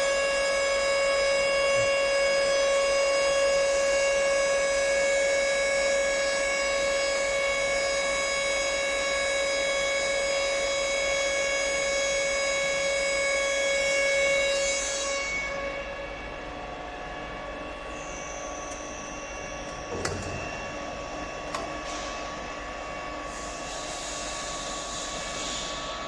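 Servo-driven CNC aluminium profile bending machine running with a steady, many-toned whine. About fifteen seconds in the whine falls away to a quieter hum, with a sharp click a few seconds later and a hiss near the end.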